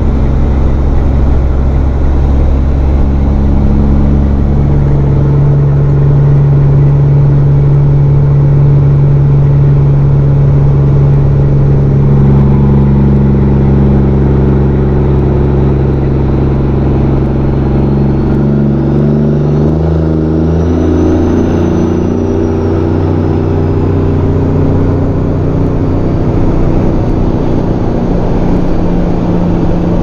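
Truck engine running steadily while driving, heard from inside the cab with road noise underneath. The engine note drops about two-thirds of the way through.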